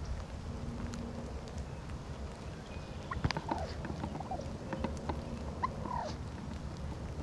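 Wild turkeys calling close by: a run of short calls, gobbling among them, between about three and six seconds in, over a steady low rumble.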